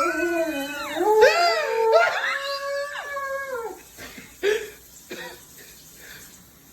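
Dog howling in long, wavering notes that bend up and down for about four seconds, then trails off in a few short, fainter whines.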